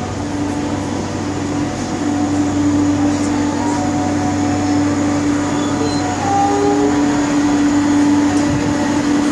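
Steady electric hum from a standing electric multiple-unit train, its air-conditioning and onboard power equipment running, with one constant tone and a lower steady drone over an even rushing noise.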